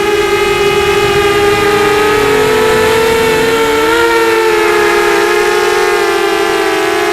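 FPV quadcopter's brushless motors whining in flight, several close tones shifting in pitch together, one dipping and climbing back about three seconds in as the throttle changes.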